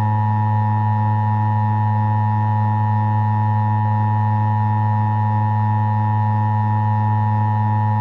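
Emergency Alert System attention signal, distorted: a steady two-tone alert with a strong low drone beneath it, held without change.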